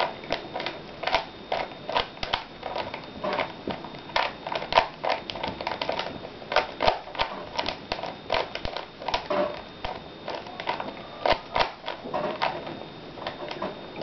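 A Rubik's cube's plastic layers being twisted quickly by hand, giving an irregular run of short clicks and clacks, several a second, as the cube is scrambled.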